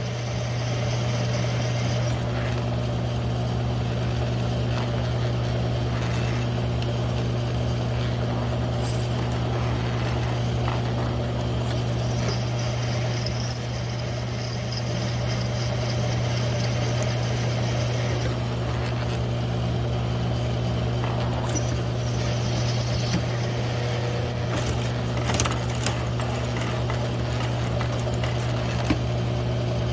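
G1007 mill-drill running steadily as a one-inch hole saw cuts through 3/8-inch mild steel plate: a constant motor hum with rough scraping from the cut, and a few sharp ticks near the end.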